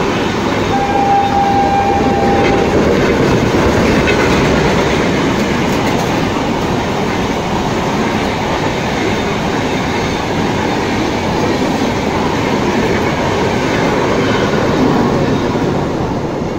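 LHB passenger coaches of an express train running through at speed, with a steady loud rumble and the clatter of wheels on the rails. A single steady high tone sounds for about two seconds near the start.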